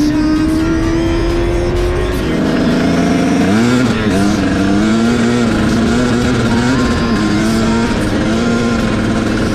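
Kawasaki Z800 inline-four engine accelerating, its pitch climbing steadily. About two seconds in, a KTM dirt bike engine takes over, revving up and down with the throttle at speed.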